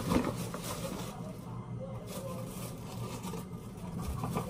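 Paper flour bag crinkling and a plastic measuring scoop scraping through flour and tipping it into a plastic pitcher, with a sharper rustle just after the start.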